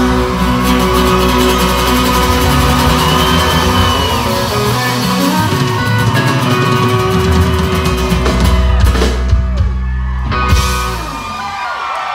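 Live country band playing the closing bars of a song, with hard-strummed acoustic guitar, electric guitar and drums, ringing out about eleven seconds in. Crowd cheering and whoops start near the end.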